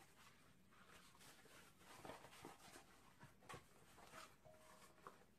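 Near silence with a few faint, scattered clicks and knocks of handling as a folding garden stool is opened.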